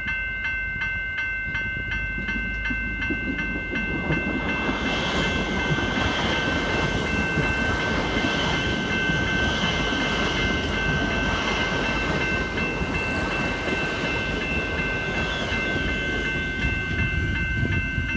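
Level crossing warning bells ringing with a rapid, even, high-pitched pulse while an electric suburban train passes. The train's rumble builds in about four seconds in and becomes the loudest sound.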